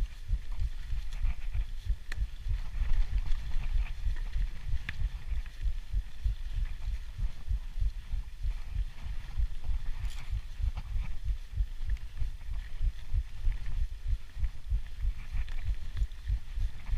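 Mountain bike riding fast down a dirt forest trail: a steady, fluttering low rumble of wind and trail buffeting on the microphone, with light rattles and ticks from the bike throughout.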